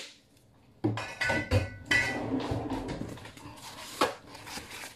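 Metal kitchenware clattering and clinking, with brief ringing, starting about a second in, and a sharp knock near the end.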